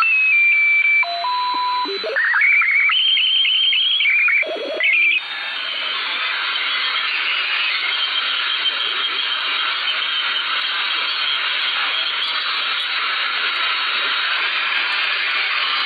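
Radio receiver audio while scanning frequencies: for about the first five seconds a string of electronic tones jumps between pitches, with runs of fast repeating beeps. Then it settles into steady static hiss with faint tones in it.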